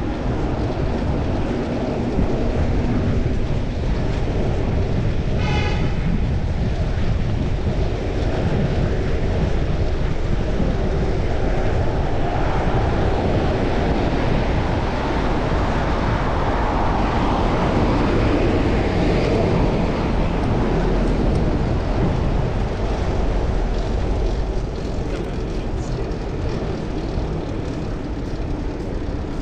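Steady wind and road noise on a chest-mounted action camera while riding a fixed-gear bicycle through city traffic. The noise swells through the middle, and a short high tone sounds about five seconds in.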